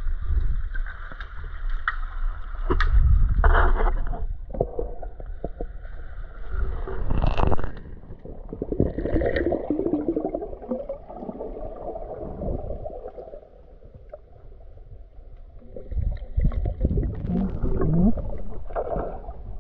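Water gurgling and sloshing close to the microphone, with irregular knocks and bumps.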